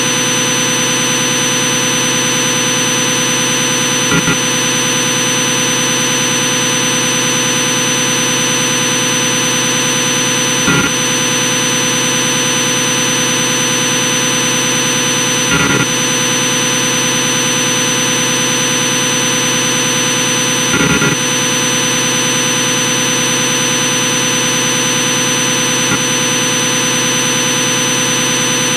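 A machine running at steady speed with a high whine over a hum, and a few brief knocks about every five seconds.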